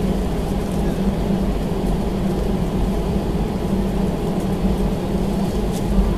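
Steady low drone and rumble of a jet airliner's engines and airframe heard from inside the cabin while it taxis at low power, with a constant hum under it and a few faint rattles near the end.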